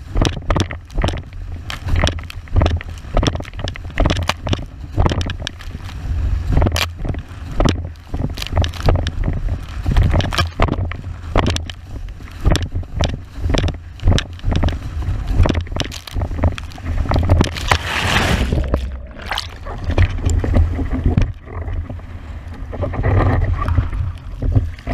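81-litre windsurf wave board planing fast over chop: rushing water with irregular slaps of the hull on the waves, over a steady low rumble of wind buffeting the microphone. A burst of hissing spray comes about eighteen seconds in.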